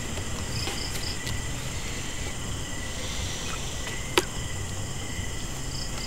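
Crickets chirping steadily over a low hum, with a few short higher chirps about a second in. About four seconds in comes one sharp slap, a playing card laid down on the tabletop.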